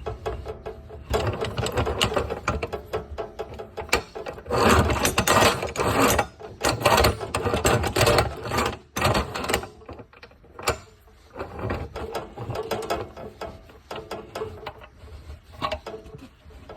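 Chicago Electric 14-inch chop saw running with an uneven mechanical rattle and clatter, loudest for several seconds in the middle.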